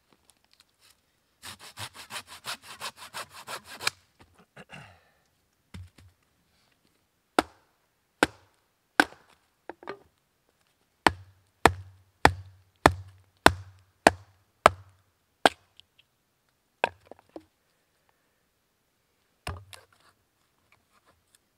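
A golok machete chopping into a wooden stake against a log, sharpening it to a point. First a quick run of rapid strokes, then about a dozen sharp single chops roughly every half second, with a last few spaced-out chops near the end.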